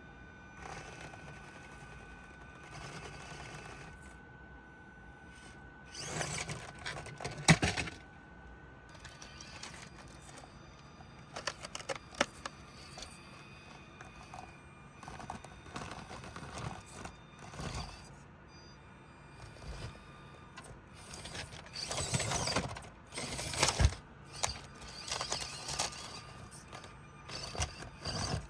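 Stock Axial SCX24 Deadbolt mini crawler driving over a rock course: short bursts of its small electric motor and gears, with sharp clicks and knocks from the tyres and chassis on the obstacles. The sound comes in separate pushes a few seconds apart, the busiest stretch near the end.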